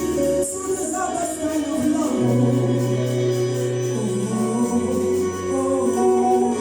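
Choir singing in harmony with instrumental backing, long held low bass notes shifting every couple of seconds beneath the voices.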